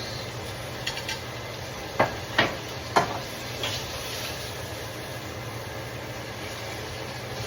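Pan juices sizzling with a steady hiss over a low hum, broken by a few sharp knocks of kitchenware about two to three seconds in.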